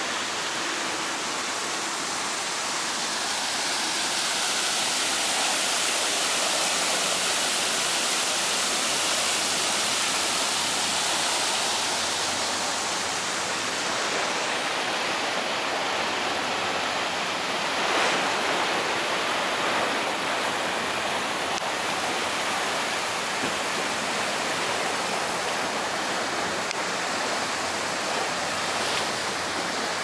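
Steady rushing hiss of river water washing along the bank, with a brief louder swell about eighteen seconds in.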